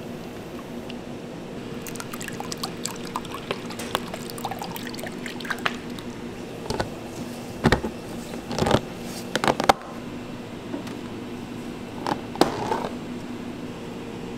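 A thin stream of milky liquid pouring into a plastic tub, with fine splashing and crackling of bubbles, followed near the middle by sharp plastic clicks and knocks as a plastic container lid is handled. A steady low hum runs underneath.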